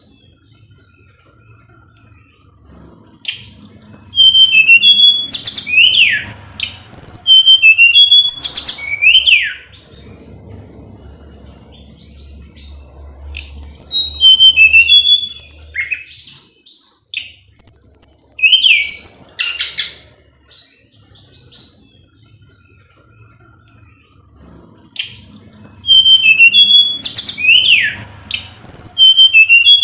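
A tledekan gunung songbird singing loud, fast phrases of high piping notes and sharply falling whistled sweeps, in several bursts of a few seconds with short pauses between them.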